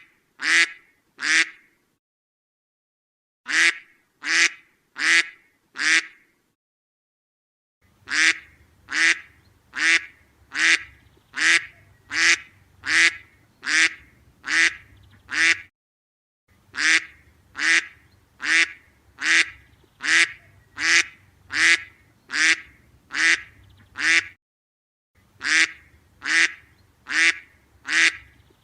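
A duck quacking in steady series, one call about every 0.7 s, in runs separated by short pauses of one to two seconds. A faint low hum sits under the longer runs.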